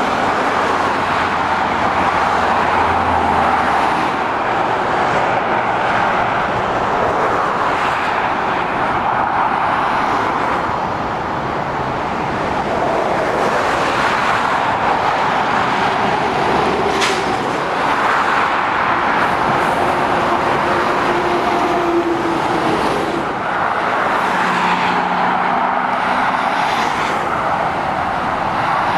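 Steady road traffic: heavy lorries and cars passing below, a continuous wash of tyre and engine noise that swells and eases a little as each vehicle goes by.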